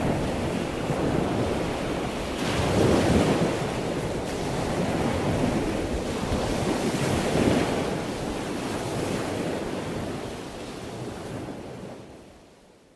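Ocean surf breaking and washing up a beach, a steady rush that surges louder about three seconds in and again about seven seconds in, then fades out near the end.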